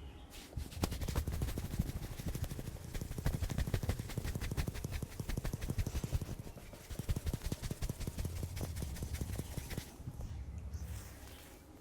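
Head massage: fast, uneven runs of taps and clicks from hands working the scalp and hair, with a short break about six and a half seconds in.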